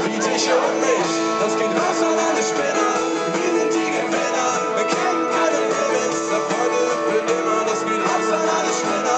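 Pop-rock band playing live on stage, with strummed guitars over the full band.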